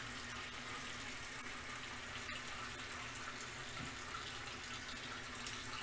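Water running steadily from a tap, heard faintly.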